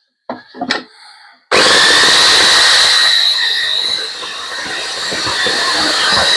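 A few light knocks, then an electric saw switches on suddenly about a second and a half in and runs with a steady high whine. It dips a little in level partway through as it cuts a wooden broom handle into a spacer.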